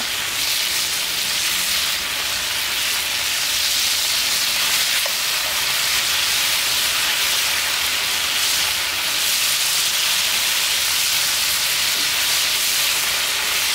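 Beef steak strips searing in hot oil in a Lodge cast-iron skillet: a loud, steady sizzle.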